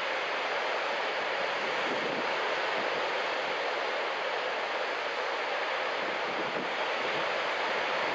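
Ocean surf breaking and washing in a steady, unbroken roar of white noise.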